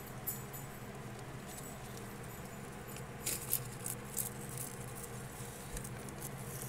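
Thin plastic feeding bag crinkling and rustling in the hand, with a cluster of sharp crinkles about halfway through, over a steady low hum.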